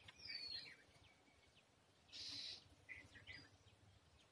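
Faint wild bird calls: a falling whistled note near the start and a few short chirps later on, with a short harsh, noisy rasp about two seconds in.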